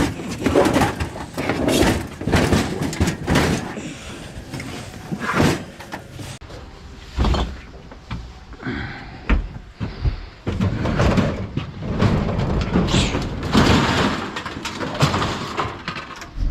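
An irregular run of knocks, bangs and clanks, several a second at times, with a few heavier thuds.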